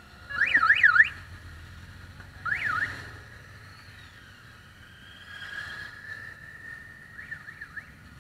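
Electronic siren on a parading motorcycle, sounded in short bursts: a loud run of fast rising-and-falling wails about half a second in, a single sweep near three seconds, then a held tone and a few quick chirps near the end. Motorcycle engines run faintly underneath.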